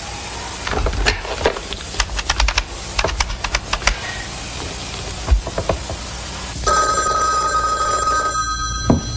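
Quick runs of clicks as a number is dialled on a telephone handset, then a desk telephone bell ringing steadily for about two seconds before it cuts off as the call is answered.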